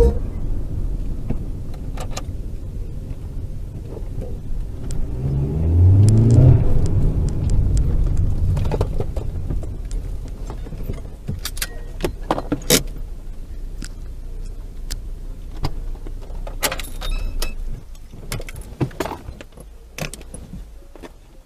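Car engine and road noise heard from inside the cabin, with the engine note rising about six seconds in. Scattered sharp clicks and knocks follow through the second half.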